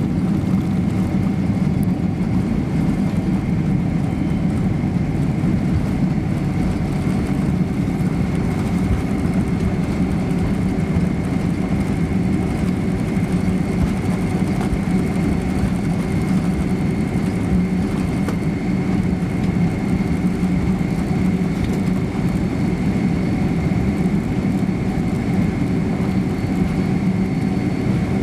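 Cabin noise inside a Boeing 767-300 rolling slowly on the ground after landing, its twin jet engines at idle. It is a steady low hum with a thin high whine over it, unchanging throughout.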